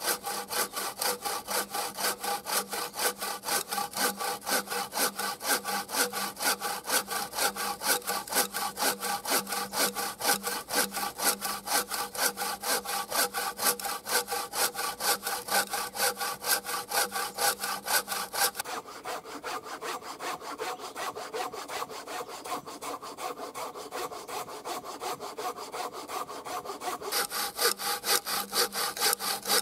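Hand-pulled wooden bow saw crosscutting a pine log, in steady back-and-forth strokes of about two to three a second. The rasp turns duller for a stretch about two-thirds of the way through, then sharp again near the end.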